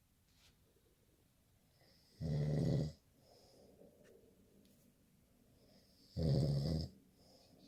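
A man snoring in his sleep: two deep snores about four seconds apart, each lasting under a second.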